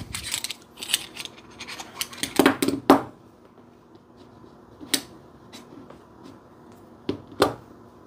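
Pocket knives and small metal EDC tools being set down on a tabletop and handled: sharp clicks and light clatters in short clusters, with quieter gaps between them.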